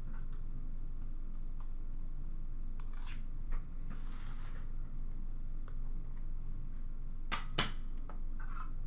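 Hands handling a trading-card box and hard plastic card holders: soft scrapes and rustles, then two sharp plastic clicks about seven seconds in, over a steady low hum.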